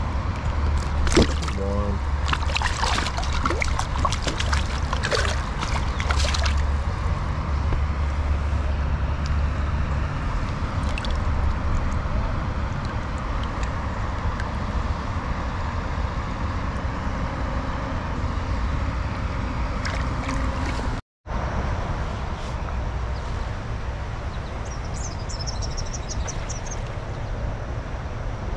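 Stream water running and trickling steadily over a low rumble. A cluster of sharp splashes or clicks comes in the first several seconds, and the sound cuts out for a moment about 21 seconds in.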